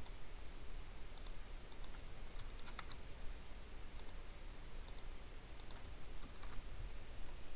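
Faint, irregular clicks of a computer mouse, some in quick pairs, over a low room hum.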